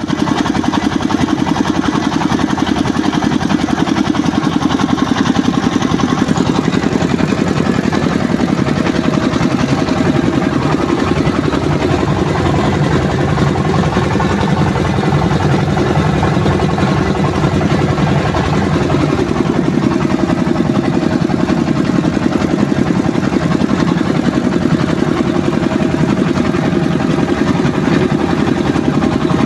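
Rice milling machine running steadily under its engine, a continuous loud mechanical drone with a fast even pulse.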